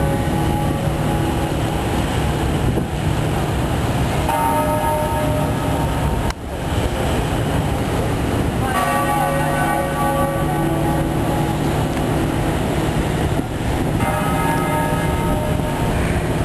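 A large bell tolled slowly as a memorial toll, struck three times about five seconds apart, each stroke ringing on and fading. Under it runs a steady low rumble.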